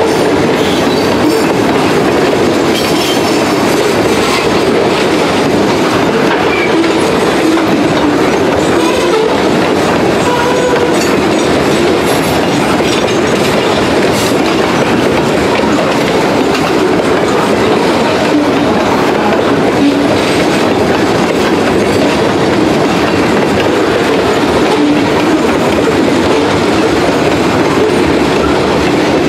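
Steel ore hopper cars of a freight train rolling past at close range: a loud, steady rumble of steel wheels on rail, with scattered clicks.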